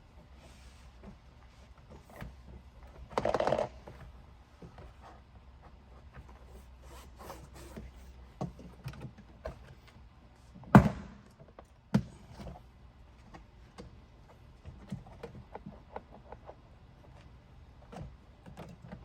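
Plastic retaining clips of a car's interior door trim panel being pried loose by hand: handling clicks and rustling, a short scraping creak of the panel early on, then two sharp pops about a second apart past the middle as clips let go.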